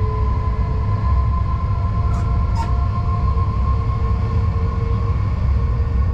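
Driver's cab of a class 187 (Bombardier TRAXX) electric locomotive under way: a steady heavy rumble from the running gear, with several steady whining tones from the traction equipment. Two short clicks come a little after two seconds in.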